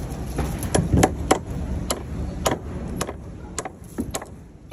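Framing hammer striking wooden formwork: about ten sharp knocks at uneven intervals.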